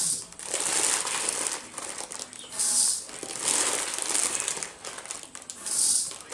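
Dry rice being measured out by the bowlful into a large aluminium pot, with the torn plastic rice packet crinkling between scoops. Three short pours of grains rush into the pot: one near the start, one about three seconds in and one near the end.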